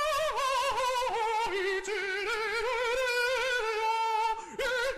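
A high operatic voice singing long held notes with wide vibrato, stepping down in pitch; the line breaks near the end and a new note starts.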